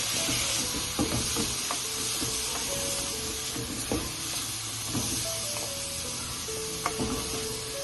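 Vegetables with soy sauce sizzling in a hot buttered pan as they are stir-fried, a spatula knocking and scraping against the pan every second or so.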